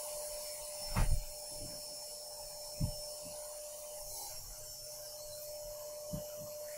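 Hands handling objects near the microphone: a few dull bumps with some rubbing, the loudest about a second in and smaller ones near three and six seconds, over a steady faint hum.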